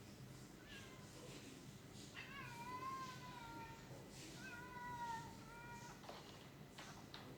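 A cat meowing: a faint short meow about half a second in, then two longer meows about two and four and a half seconds in, each rising slightly and then falling away.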